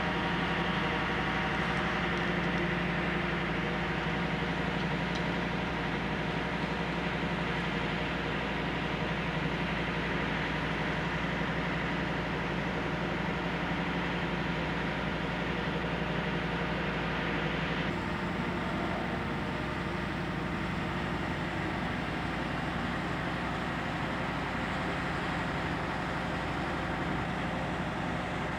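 Steady drone of a diesel engine idling, unchanging in pitch, with a slight shift in tone about 18 seconds in.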